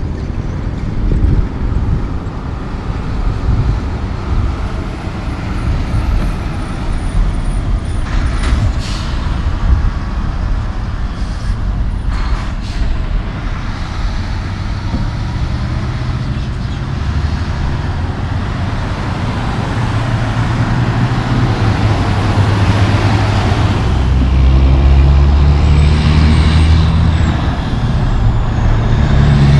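Road traffic passing, led by heavy Mack semi-trucks' diesel engines, with a couple of short air-brake hisses. The low engine sound grows louder near the end as a truck pulls past close by.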